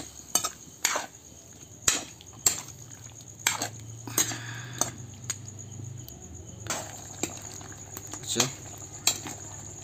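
A metal ladle scraping and knocking against a steel kadai as chicken curry is stirred, with irregular clacks about every half-second to second over a faint sizzle from the pan.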